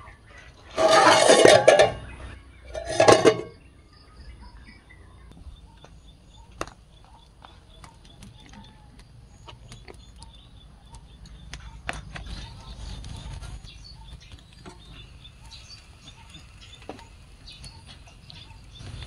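Two loud farm-animal calls, the first about a second long and the second shorter, followed by faint high chirping and scattered small clicks.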